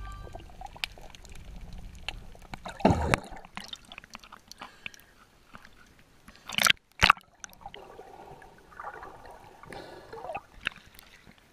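Water sloshing and gurgling around a GoPro's waterproof housing as it moves under and at the surface, with two sharp splashes close together about seven seconds in.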